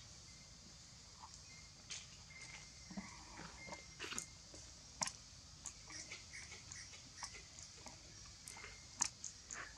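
Faint forest ambience: a steady high hiss with scattered soft clicks and short high chirps.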